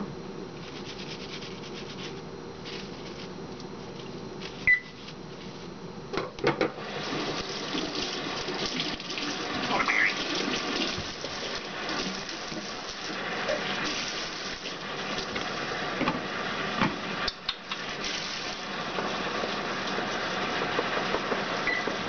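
Kitchen faucet running into a stainless steel sink, the stream splashing over celery being rinsed under it; the water gets clearly louder about six seconds in and then runs steadily.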